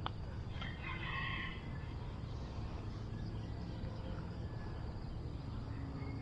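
A rooster crowing faintly once, about a second in, over a steady low outdoor rumble.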